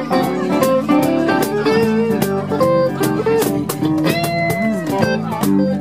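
Live blues band playing an instrumental break: an electric guitar lead over a steady drum beat, with a long bent note about four seconds in.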